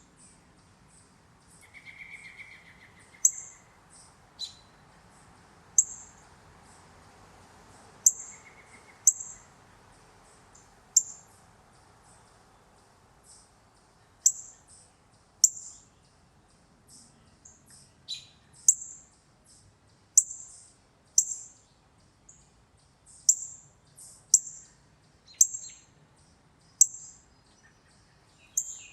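A songbird giving sharp, high, single chip calls, about twenty of them, irregularly spaced every second or two. Softer, lower short notes come around two seconds and nine seconds in.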